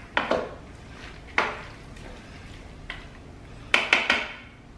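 A spoon stirring a thick mix in a slow cooker's crock, knocking and scraping against the pot several times, with a quick cluster of knocks near the end.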